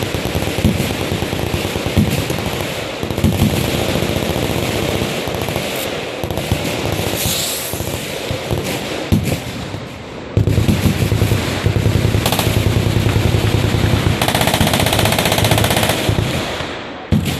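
Machine-gun fire from several guns on a shooting line: overlapping rapid bursts, then one long continuous burst from about ten seconds in that runs for some six seconds before stopping.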